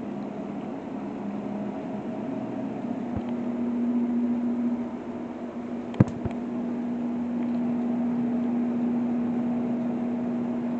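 A steady mechanical hum, like a fan or household appliance running, with a single sharp click about six seconds in.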